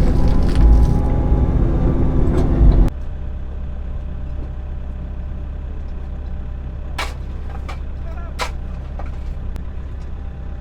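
Midsize excavator's diesel engine running loud and steady under digging load, then dropping suddenly to a quieter steady hum about three seconds in. A couple of sharp knocks come later.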